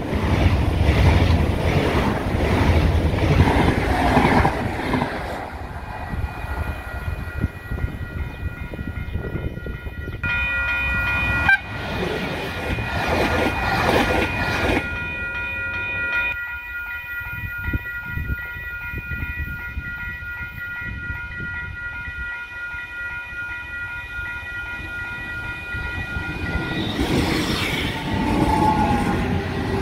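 CP electric trains passing close at speed, wheels rumbling and clattering on the rails: first a Class 2240 electric multiple unit, then a Class 5600-hauled Intercidades train, then another Class 2240 unit near the end. A steady high whine of several tones sounds through the middle.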